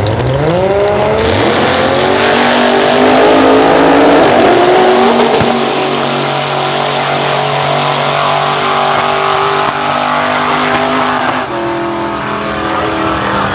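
Drag race launch: a 2JZ straight-six-powered Datsun coupe and a second drag car leave the line at full throttle. Engine pitch climbs steeply over the first two seconds, then holds high and loud as they run down the strip.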